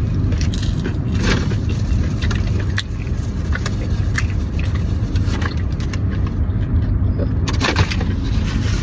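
Steady low rumble inside a car cabin, with scattered short crinkles and taps from food packaging being handled.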